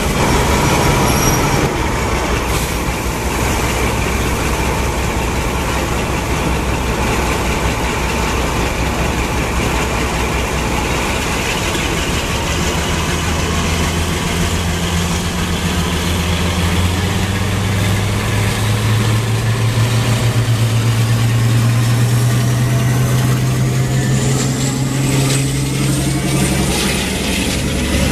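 Class 52 Western diesel-hydraulic D1062's twin Maybach diesel engines running, their note stepping up and growing louder about halfway through as the locomotive takes power and pulls away with its train. A rising whine comes in near the end.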